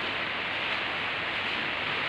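A steady, even hiss with no change in level.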